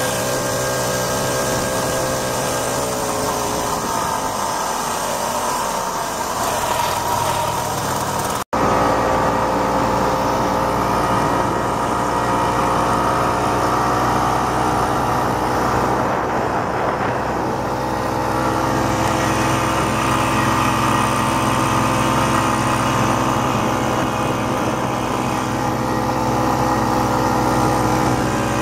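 1967 Ski-Doo Olympique snowmobile's 250cc single-cylinder two-stroke engine running steadily as the sled travels the trail. The sound cuts out for an instant about eight seconds in.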